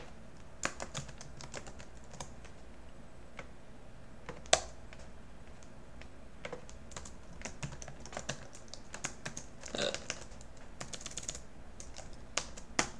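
Typing on a computer keyboard: scattered keystrokes that bunch into quick runs in the second half, with one louder single click about four and a half seconds in.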